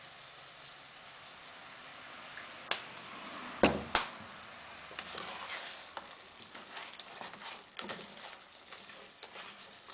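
Crab pieces in curry sauce sizzling faintly in a nonstick pot, then two sharp knocks about three and a half seconds in. After that a plastic spatula stirs the crab around the pot with irregular scrapes and clacks.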